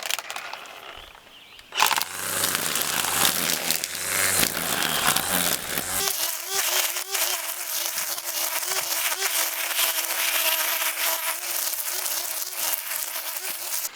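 Electric string trimmer starting up about two seconds in and running, its line cutting through weeds with a crackling noise. From about six seconds in, a steady motor whine sits over the cutting.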